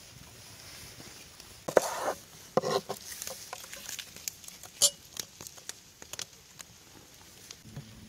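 Cooking handling noises: two short rustling scrapes a little under two seconds in, then scattered light clicks and taps with one sharper tick near the middle.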